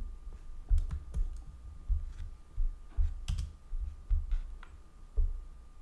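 About a dozen irregular clicks and taps on a computer's keys and pointer, each with a dull low thump, over a faint steady high tone.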